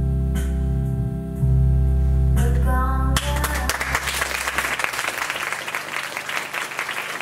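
A song with singing over sustained instrumental chords plays and cuts off about three seconds in. A theatre audience then breaks into applause that continues steadily.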